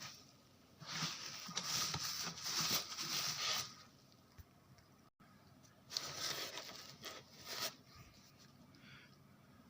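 Rustling and crinkling of packaging being handled, in two stretches of a few seconds each.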